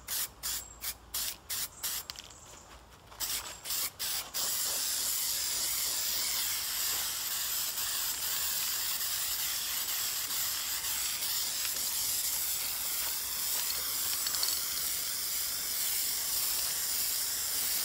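Aerosol spray-paint can spraying onto a computer case: a run of short bursts, then a long continuous hiss from about four seconds in.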